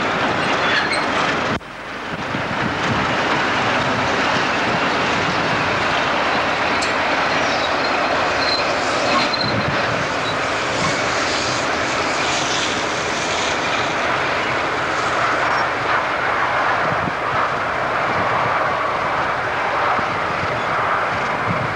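A pair of British Rail Class 31 diesel locomotives, their English Electric V12 engines running loud and steady as they haul a train of loaded hopper wagons past and away. There is a brief drop in the sound about a second and a half in.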